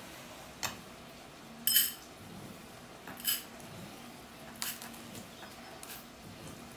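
Kitchen utensils and dishware clinking as they are handled: about half a dozen light clinks and knocks, the loudest a short ringing clink just under two seconds in.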